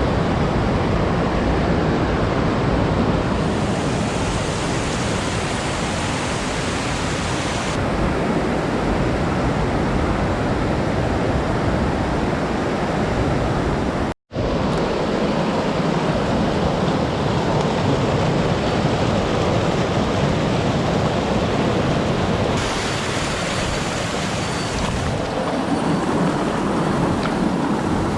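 Steady rushing water of a mountain stream, an even loud rush with a momentary dropout about fourteen seconds in.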